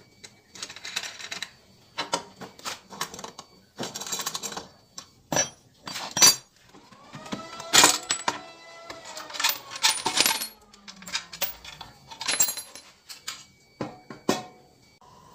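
Bolts on a Honda scooter's CVT cover being loosened with a hand tool and dropped onto a concrete floor, making a run of sharp metal clicks and clinks. Midway, the plastic cover is pulled off, with a creaking scrape that slides up and down in pitch.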